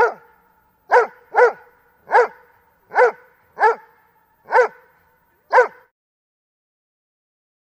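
Doberman pinscher barking: about seven single loud barks, roughly one every second or less, each ringing on briefly, stopping about six seconds in.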